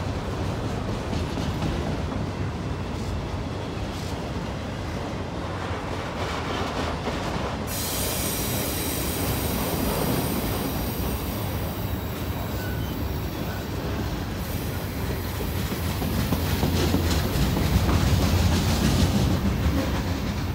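Freight train cars (loaded autoracks, then boxcars) rolling past close by with a steady rumble and wheels clicking over the rail. Partway through, a high-pitched steady wheel squeal sets in as the train takes the curve, and the passing cars grow louder toward the end.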